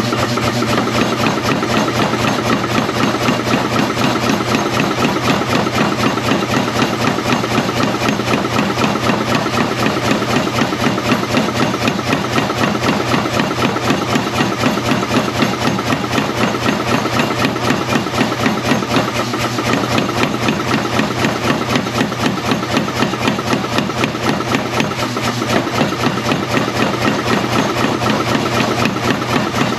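Power hammer running with a fast, steady run of blows, drawing out a mild steel bar between its dies against stop blocks.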